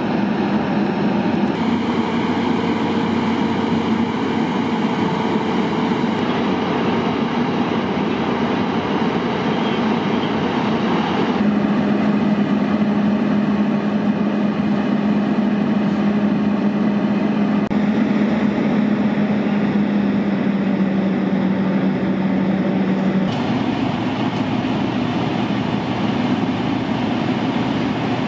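Heavy diesel engine running steadily with a low hum under a continuous rushing hiss, as fire apparatus and hose streams work at a burning rail car. The sound shifts abruptly several times.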